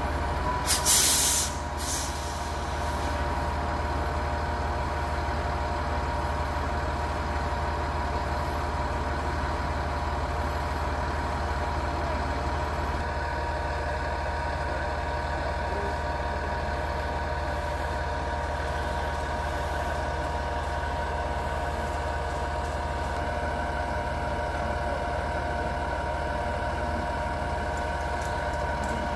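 Work truck's engine idling steadily, a low hum with a steady whine over it, and a short loud hiss about a second in.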